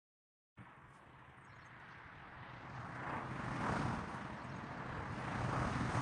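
Strong wind and surf on the Mediterranean shore: a rushing noise that starts suddenly, grows louder, and swells twice, once near the middle and again at the end.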